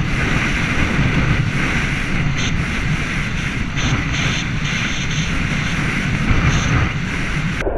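Wind rushing over a handlebar-mounted action camera on a bicycle descending at high speed: a steady, loud roar with heavy low rumble, from the rider's speed of around 76 km/h.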